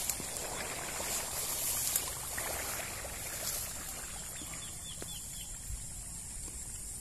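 Creekside ambience: a soft trickling, rustling hiss of water for the first few seconds while a cast net's rope is held taut across the creek, then a bird's short chirps repeating from about two-thirds in.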